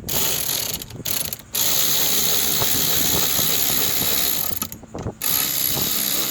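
Power screwdriver with a Torx T20 bit driving a door-handle screw home, running in spurts with short stops about a second and a half in and near five seconds in.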